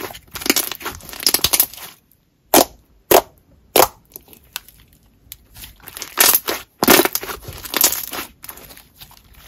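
Clear glitter slime with beads being squished, pressed and squeezed by hand, with sticky crackling and sharp bubble pops as trapped air bursts. A few single pops stand out near the middle, and there is a louder run of squishing and popping later on.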